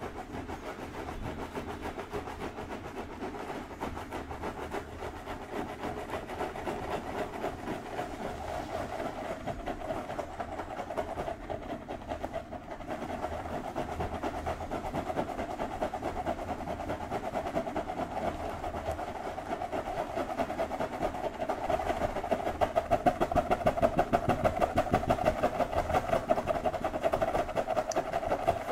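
Fingertips scratching rapidly through long hair close to the microphone: a fast, steady, rhythmic rustling scratch that grows louder about two-thirds of the way through.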